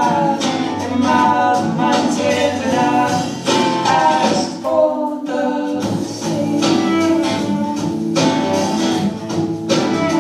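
A recorded song playing: a sung melody over instrumental accompaniment.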